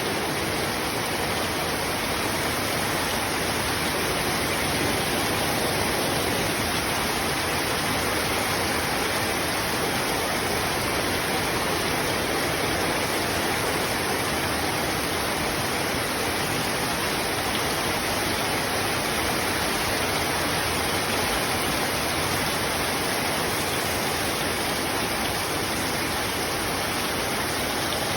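Heavy rain falling in a steady, dense hiss that stays even throughout.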